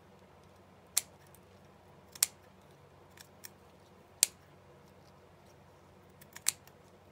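A few short, sharp clicks a second or two apart, four of them loud, from craft materials being handled at a desk.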